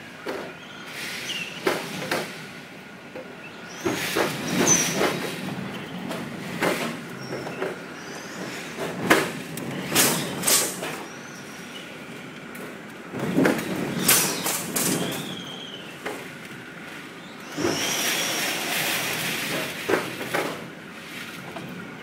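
Typhoon wind gusting in repeated swells, with short whistling squeals and many sharp rattling knocks from loose things being shaken.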